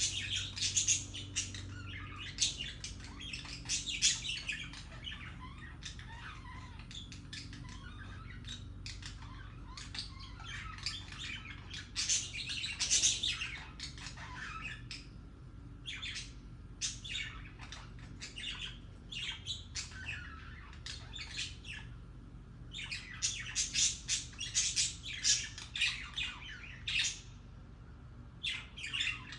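Budgerigars chattering and warbling: rapid chirps and squawks in bursts with short lulls, the happy, courtship-type chatter of budgies.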